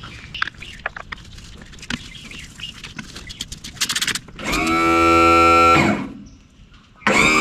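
A few scattered light clicks and knocks, then two loud, held electric guitar chords, each about a second and a half long, with a short gap between them.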